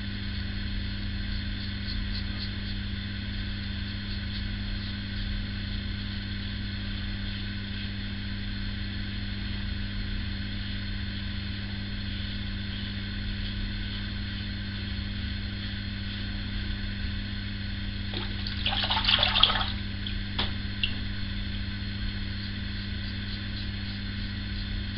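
Single-edge injector razor (PAL Injectomatic) scraping through lathered stubble in faint short strokes, over a steady low electrical hum. A brief louder noise comes about nineteen seconds in.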